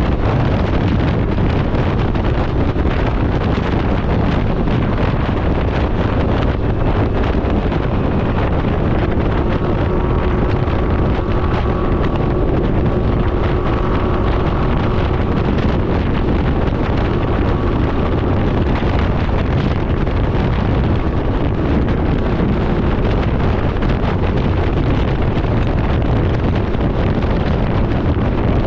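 Steady wind rush buffeting the microphone on a Can-Am Ryker 900 three-wheeled motorcycle moving at road speed. A faint steady tone shows through in the middle.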